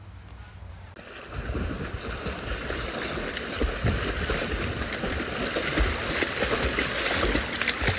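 Swimming-pool water splashing and churning as people swim and kick, starting about a second in.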